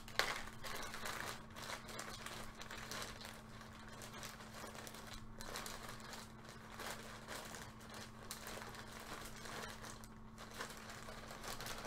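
Clear plastic bag crinkling and rustling as it is handled, in scattered quiet crackles with a sharper crinkle just after the start, over a faint steady hum.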